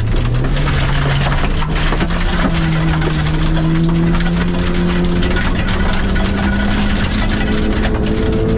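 Mitsubishi Colt 1.6 rally car's four-cylinder engine heard from inside the cabin, pulling hard on a gravel stage. Its pitch jumps up about two and a half seconds in, then climbs slowly as the car gains speed. Gravel noise and stone clicks from the tyres and underbody run underneath.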